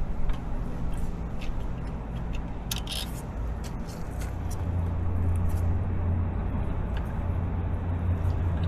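Scattered light clicks and taps of hand tools and parts being worked on a motorcycle's gear shift linkage. Under them runs a steady low hum that grows stronger about halfway through.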